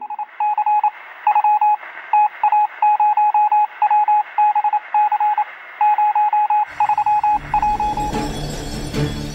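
Rapid electronic beeps at a single pitch, sounding in short uneven groups like keypad or Morse tones. About seven seconds in, music with a heavy low beat comes in under them and takes over.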